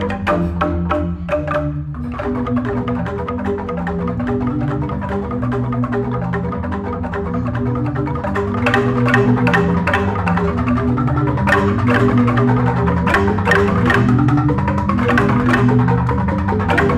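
Jegog, the Balinese bamboo-tube gamelan, playing: fast struck bamboo notes interlocking over deep sustained bass tones. The playing grows louder, with sharper strikes, from about eight seconds in.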